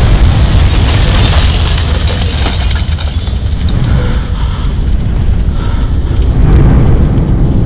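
Film sound effect of a large explosion: a heavy low rumble with hissing, crackling debris that carries on for several seconds, easing off midway and swelling again near the end.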